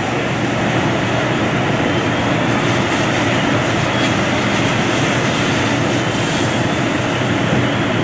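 Fire apparatus engines running in a steady, loud drone.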